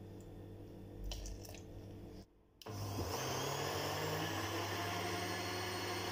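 Countertop blender mixing thin batter: it starts a little under halfway in with a rising whine, runs steadily, and cuts off suddenly at the end. Before it there is a faint steady hum with a few light clicks.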